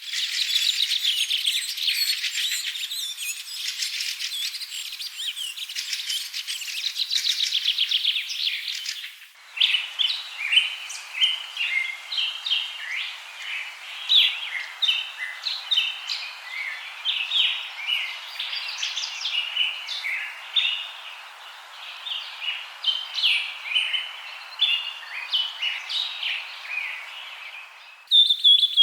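Songbirds chirping and singing. The first nine seconds or so are a dense, fast twittering; then the sound switches abruptly to a sparser run of separate high chirps, and it changes abruptly again near the end.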